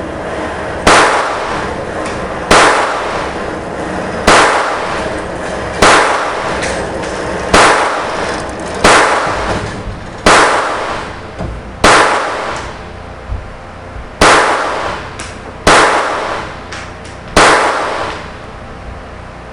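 Stoeger Luger .22LR semi-automatic pistol firing a steady string of eleven shots, about one and a half seconds apart, each crack followed by a ringing echo that trails off.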